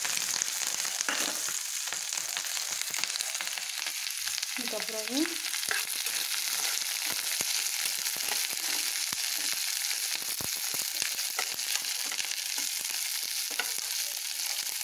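Cut green chillies sizzling in hot oil in a non-stick pan, a steady hiss with scattered crackles, while a spatula stirs them.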